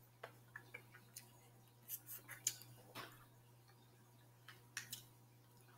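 Faint eating sounds: scattered soft mouth clicks and smacks of chewing seafood and licking fingers, over a low steady hum.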